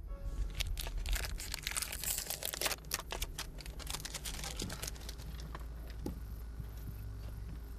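Crinkling and clicking as a solar module is handled in its cardboard packaging, dense for the first three seconds and then thinning to a few scattered ticks, over a steady low rumble.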